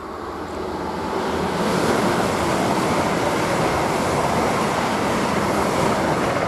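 ICE 3 high-speed trainset passing at speed: a rush of wheel, rail and air noise that builds over the first two seconds, holds steady while the cars go by, and starts to fade near the end.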